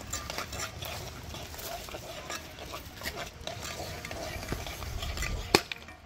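A spoon stirring curry in a small frying pan over a wood fire, with light scraping and clicking against the pan and a sharp clink about five and a half seconds in.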